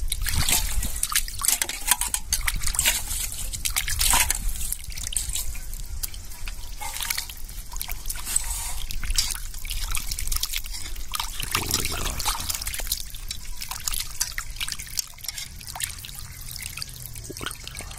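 Water sloshing and splashing in a steel basin as hands rub and swirl raw chicken pieces to rinse them, with drips and trickles; the splashing is irregular and eases off near the end.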